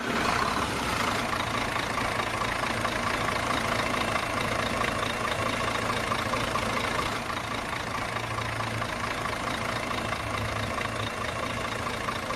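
Engine idling steadily with an even, unchanging hum.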